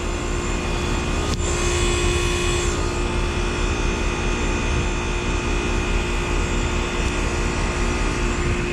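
1995 Trane XE1000 Weathertron heat pump running steadily. Its very loud Climatuff reciprocating compressor makes a steady hum under the rush of the outdoor fan, with a single brief click about a second and a half in.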